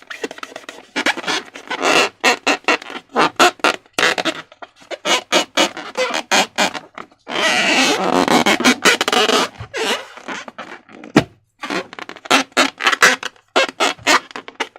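Slime being squeezed and worked by hand: a rapid, irregular run of sticky clicks and wet popping air pockets, with a longer continuous squelch a little past halfway.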